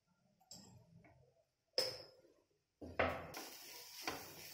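A spatula clinks once against a non-stick frying pan, then scrapes and stirs chopped vegetables in it in several strokes from about three seconds in.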